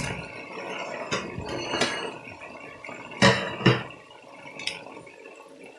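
Chicken deep-frying in hot oil in a steel pot, a steady sizzle of bubbling oil. A slotted spoon knocks against the pot several times, with the two loudest knocks a little over three seconds in.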